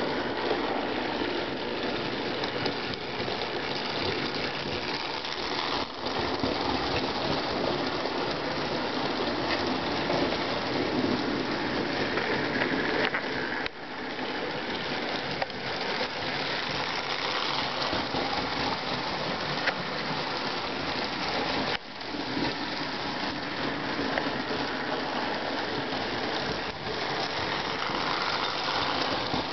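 Lionel 221 O-gauge toy train and passenger cars running on three-rail tubular track: a steady rushing clatter of wheels and motor, briefly dipping about six, fourteen and twenty-two seconds in.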